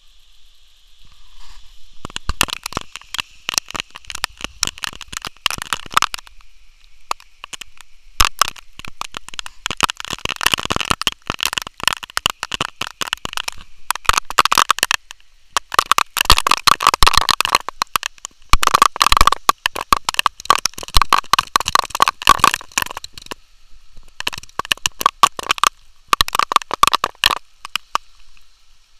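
Raindrops striking close to the microphone in a dense crackling clatter. The patter comes in bursts, heaviest through the middle, with near-quiet gaps of faint hiss at the start and around the 7 and 24 second marks.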